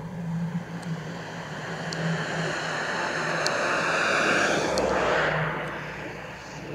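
Jet airliner (easyJet Airbus A320-family) passing low overhead: a broad rush of jet engine noise that swells to its loudest about four seconds in, then drops in pitch and fades as the aircraft goes by.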